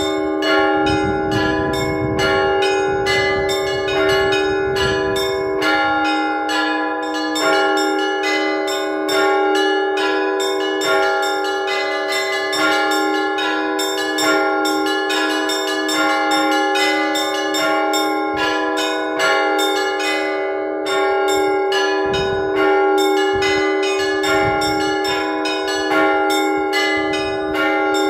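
Orthodox church bells rung by hand in a rapid peal, several strikes a second, the tones of the bells ringing on and overlapping. It is the bell ringing that calls parishioners to Sunday prayer.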